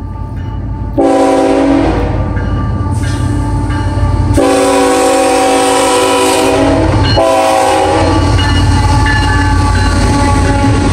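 Norfolk Southern freight locomotive's air horn blowing for a grade crossing: it starts suddenly about a second in and sounds in several blasts, with breaks about four and seven seconds in. Under it runs the low rumble of the approaching locomotive and train.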